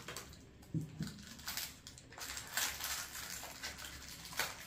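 Faint rustling and a few scattered light clicks of a small parcel's packaging being opened by hand.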